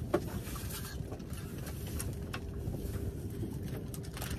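Steady low rumble of wind and water around a fishing boat on the lake, with a faint steady hum and a few light knocks, the sharpest just after the start.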